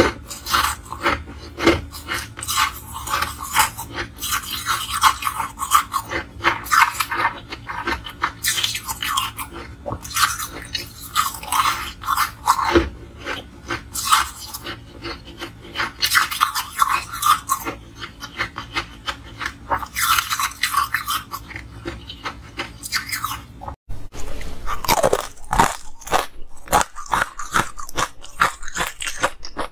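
Close-miked crunching and chewing of soft, snowy ice, a run of irregular crisp crackles bite after bite. A brief break about 24 seconds in, then the crunching goes on.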